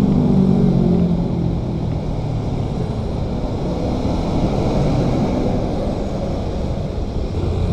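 Road traffic rumbling past, muffled. A vehicle's engine drone stands out in the first second or so, then an intercity coach's engine and tyres rumble by at close range.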